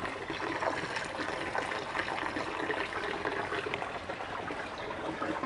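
Swimming pool water trickling and running steadily.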